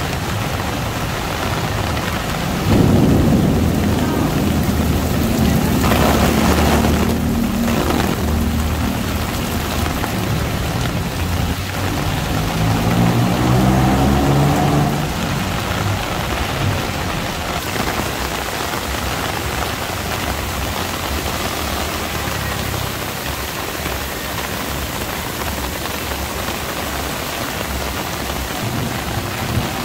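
Rain falling steadily on a street. A motor vehicle's engine runs loudly through it from about three seconds in until about fifteen seconds, its pitch rising near the end before it fades back into the rain.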